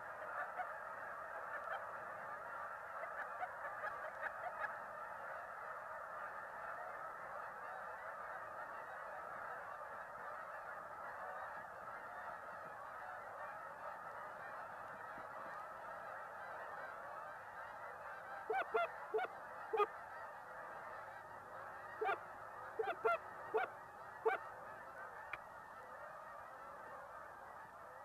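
A large flock of wild geese honking overhead: a continuous chorus of many overlapping calls. In the second half, a string of louder single honks stands out.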